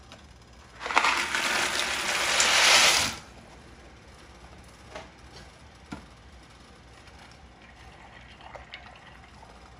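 Dry penne poured from its cardboard box into a pot of boiling water: a loud rattling rush of about two seconds, starting about a second in. Two light knocks follow, then faint stirring in the pot.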